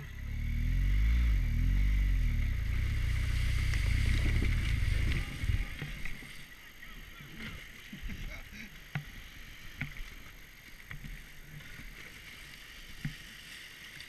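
BMW R1200GS Adventure's boxer-twin engine revving hard, rising and falling in pitch, then cutting out abruptly about five seconds in as the bike goes over in the river. After that, river water rushing, with scattered knocks and splashes.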